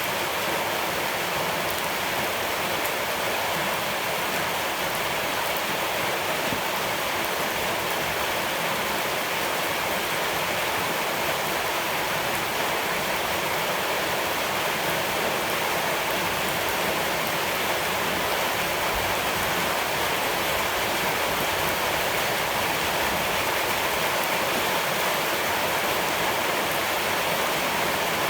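Steady rush of running water: an even hiss with no breaks or change in level.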